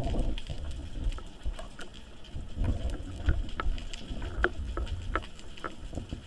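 Underwater sound picked up through a camera housing: a low rumbling water noise that swells now and then, with scattered sharp clicks.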